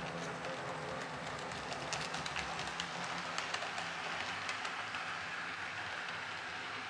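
H0-scale model SU46 diesel locomotive running along the layout track with a coach: a steady low hum, with many small clicks as the wheels cross the rail joints.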